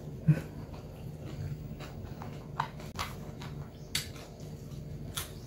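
A person chewing salad greens, with a few light clicks of metal chopsticks scattered through, over a low steady hum.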